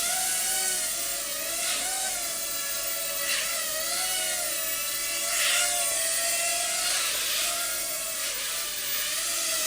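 Small electric RC helicopter's rotor motors whining, the pitch wavering up and down as the throttle is moved.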